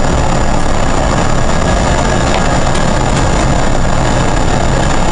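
Steady rushing noise on a Boeing 777 flight deck in flight, airflow and engine noise, with a thin high-pitched whine over it.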